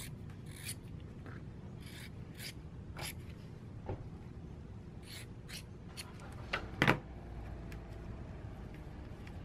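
Scissors snipping fiberglass cloth in short, scattered cuts, with light handling as the cloth is pressed down, and two louder knocks near the end.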